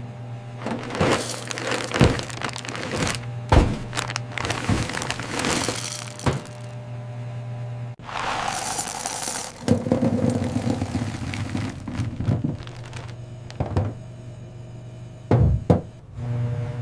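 Cartoon sound effects: a string of knocks, thuds and cracks over a steady low hum, with background music.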